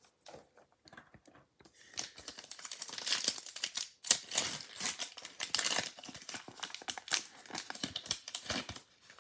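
Baseball card pack wrapper being torn open and crinkled by hand, a dense crackling that starts about two seconds in and goes on until near the end.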